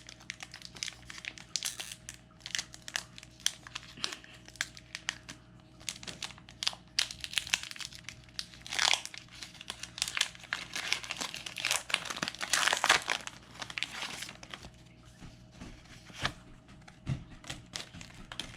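Foil booster-pack wrapper of a Pokémon card pack crinkling and tearing as it is opened, with the cards being handled in between. The loudest crinkling comes about nine seconds in and again around twelve to thirteen seconds.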